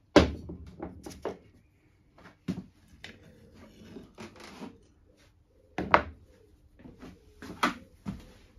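Several sharp knocks and clatter of hand tools being set down and handled on a plywood workbench: a camping-gas blowtorch canister and a pair of pliers. The loudest knock comes right at the start, with another strong one past the middle.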